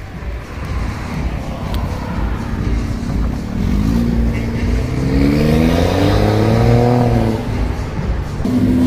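BMW 3 Series sedan pulling away under acceleration: a low engine rumble, then an engine note that rises steadily for about four seconds before easing off.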